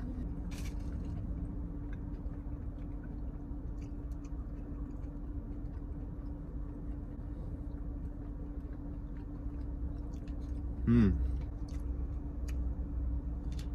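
A person chewing a bite of a crispy fried chicken sandwich with mouth closed, with a steady low hum in the car cabin behind it. About eleven seconds in comes a short hummed "mmm" that falls in pitch.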